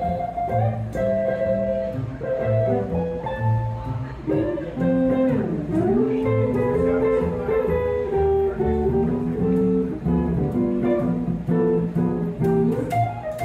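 Small traditional jazz band playing an instrumental passage: archtop guitar comping chords and upright bass plucking a steady line underneath a sustained lead melody, which dips in pitch and swoops back up about five seconds in.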